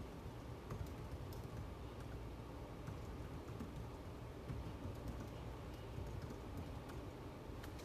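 Faint, irregular clicks of typing on a computer keyboard, over a steady low background hum.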